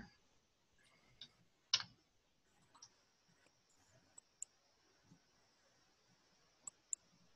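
Near silence broken by several faint, scattered clicks and ticks, the clearest about two seconds in.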